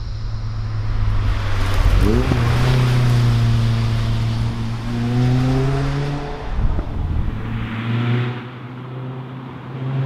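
Lotus Elise sports car engine running hard as the car drives by, revs climbing sharply about two seconds in, then holding and rising slowly under acceleration. It gets quieter near the end.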